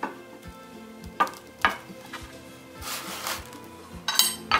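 Background music with a steady beat, over the clatter of wooden and iron sled parts being handled on a workbench: sharp knocks and clinks about a second in, and a louder rattle of clatter near the end.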